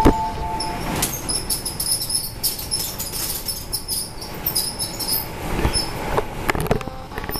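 Metro platform ambience beside a stopped subway train with its doors open: passengers' footsteps and movement, scattered short high squeaks, and a few sharp clicks and knocks, one about a second in and several more near the end.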